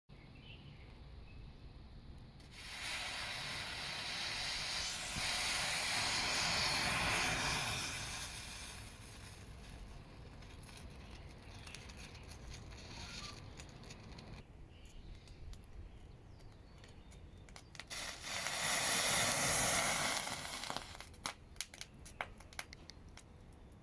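Homemade firework composition of potassium chlorate, sucrose, calcium nitrite and potassium sorbate burning with a hiss: a first hissing burn lasting about five seconds, then a second shorter one later, followed by a few sharp crackles and pops.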